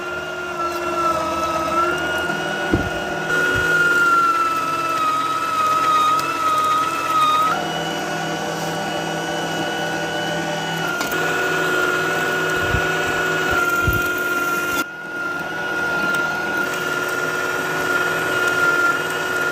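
Electric meat mincer running steadily, its motor whining as it grinds raw meat and fat into mince. The whine wavers in pitch for a few seconds under load, with a few dull knocks as chunks are fed in.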